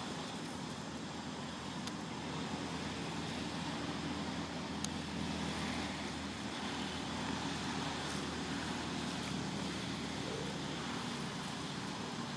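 Steady low rumble of ambient noise with a few faint clicks.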